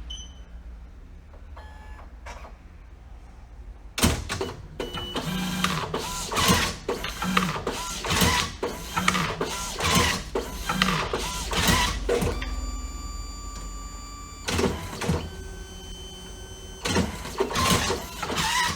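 DNP DS-RX1 dye-sublimation photo printer running its reset cycle after being closed with a repaired ribbon. A short beep near the start, then from about four seconds in its motors whir and its mechanism clicks and clunks, with steady motor whines in places.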